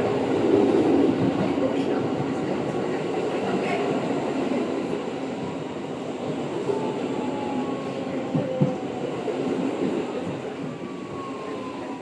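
An R160 subway car running, heard from inside the car with its HVAC not running: steady wheel and track rumble with a few knocks. Over the last few seconds the rumble eases and a motor whine falls in pitch as the train slows into a station.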